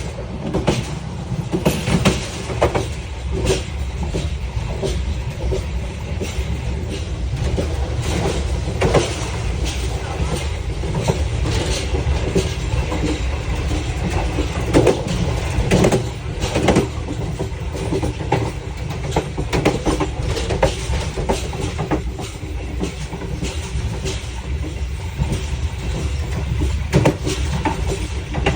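Train wheels running on the rails, clicking and knocking irregularly over the joints above a steady low rumble.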